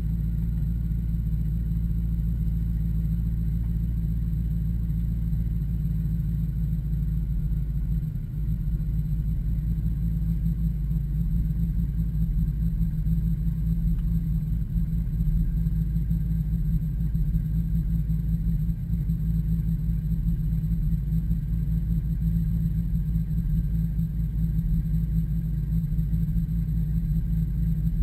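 Twin-turbocharged Jeep Grand Cherokee SRT8's V8 idling with a steady low rumble, heard from inside the cabin.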